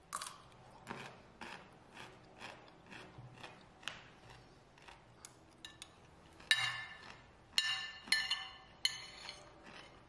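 Close-up eating sounds: chewing at about two strokes a second, then a metal spoon clinking and scraping against a ceramic plate four times, each with a short ring.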